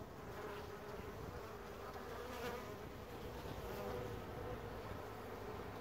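Honeybees buzzing steadily as they fly in and cluster at a small pipe entrance to the hive, a continuous hum of many wings.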